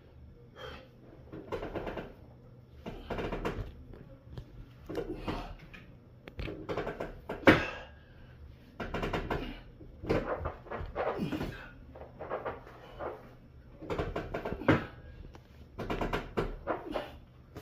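A person working out with a 45-pound weight plate: short, forceful breaths repeat about every one to two seconds through the reps, with one sharp knock near the middle.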